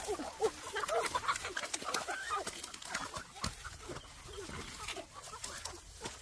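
Several chickens clucking, many short calls overlapping, with a few sharp clicks among them.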